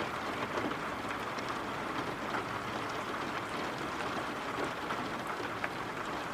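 Steady rain falling, with light scattered drop ticks in a continuous hiss.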